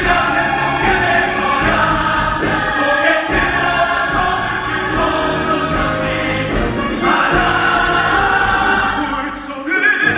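Musical-theatre ensemble singing in chorus with orchestral accompaniment, a curtain-call number. The music eases off briefly about nine and a half seconds in, then comes back in full.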